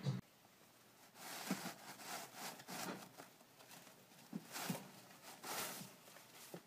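Faint rustling and crinkling of tissue paper in irregular bursts as a pet rodent pulls tissues out of a tissue box.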